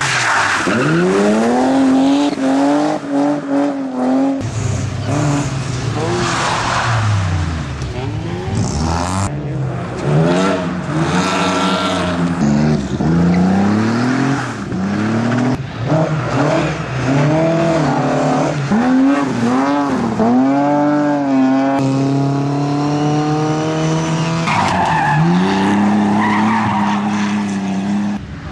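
Competition car engine being driven hard through a slalom course: the engine note climbs under acceleration and drops again many times as the driver shifts, lifts and brakes, holding steady for a moment here and there. Tyres squeal at times in the turns.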